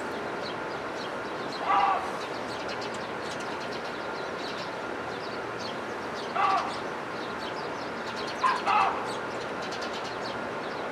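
Small birds chirping constantly in short high notes over a steady background rush. A louder, lower, short call cuts in four times: about two seconds in, at six seconds, and twice close together near nine seconds.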